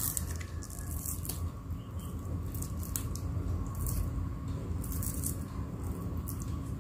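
Scattered small clicks and rustles of hands gutting small river fish over a plastic bag, over a steady low hum.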